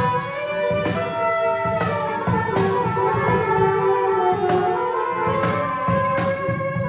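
Free improvised reed ensemble of saxophones and clarinet holding overlapping, clashing long notes that bend and shift in pitch, over irregular hand strokes on batá drums.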